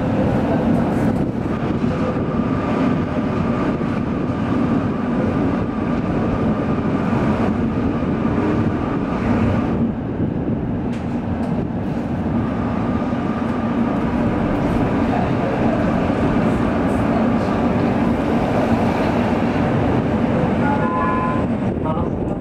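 Tram running along street tracks, heard from inside the car: a steady rumble of wheels and running gear with a faint whine at times, and a few short high tones near the end.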